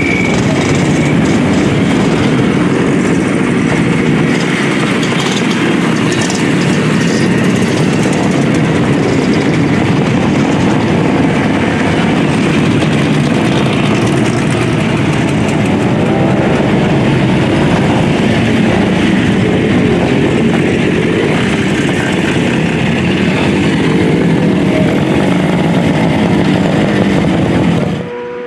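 A procession of vintage motorcycles riding slowly past, their engines running together in a loud, continuous mix of engine noise. The level drops suddenly near the end.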